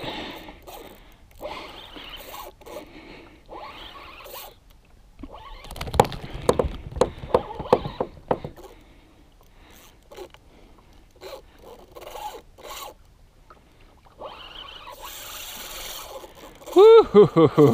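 Spinning reel working against a hooked blackfin tuna: the drag buzzes in short zipping runs as the fish pulls line, with clicking from the reel in between. The buzzing is densest and loudest about halfway through. A brief loud burst comes near the end.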